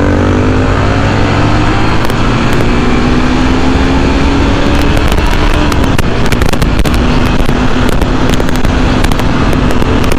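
Yamaha FZ V3's single-cylinder engine pulling hard at speed, its note climbing steadily for about five or six seconds and then holding level. Heavy wind noise rushes and crackles over the microphone.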